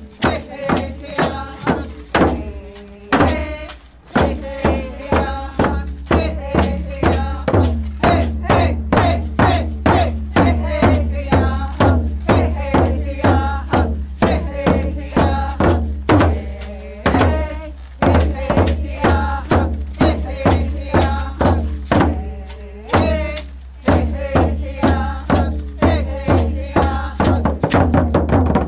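Tlingit traditional song: a group of voices singing together over hand-held hide frame drums beaten in a steady pulse of about two beats a second, with a few brief breaks in the drumming.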